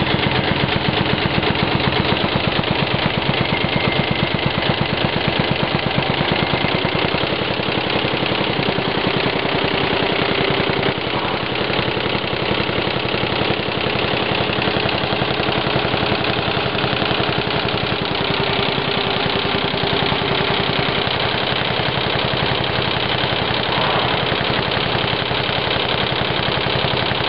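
Computerized multi-needle embroidery machine (ZHAO) stitching: a rapid, steady mechanical clatter from the needle bar driving up and down. It gets slightly quieter about eleven seconds in.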